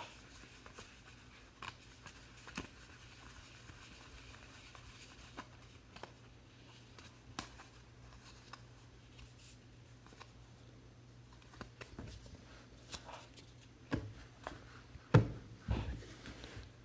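Trading cards and packs being handled by hand: soft rustles and small clicks, with a few louder knocks near the end, over a faint steady low hum.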